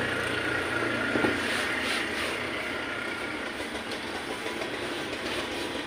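Steady background noise of passing motor traffic, a continuous even rumble with no distinct knocks.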